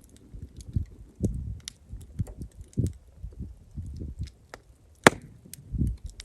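Campfire crackling: scattered sharp pops and snaps, one much louder pop about five seconds in, over a low, uneven rumble.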